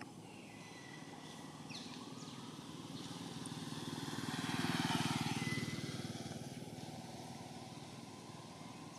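A motor vehicle passing by: its engine grows louder over a few seconds, is loudest about halfway through, then fades away.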